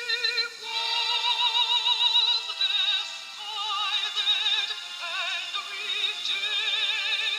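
Background music: a high melody of long held notes with strong vibrato, changing pitch about once a second, sung or played on a voice-like synthesizer.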